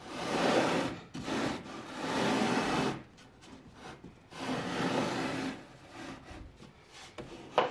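A pencil held against a scrap-wood block scraping along a particleboard disc as the block is slid around its curved edge to draw an offset line, in several long rubbing strokes with short pauses between them.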